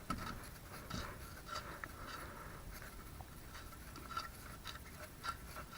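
Faint scattered light clicks and scrapes of hands handling something, over a low background hiss.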